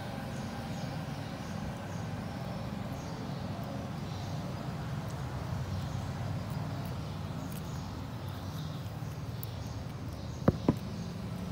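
Steady low background rumble, with two quick, sharp knocks near the end.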